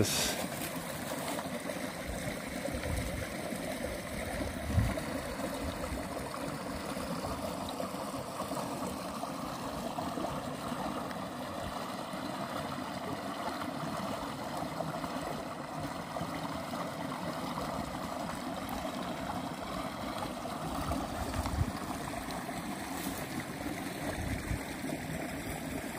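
Small, shallow stream babbling over rocks: a steady sound of running water, with a few brief low thumps.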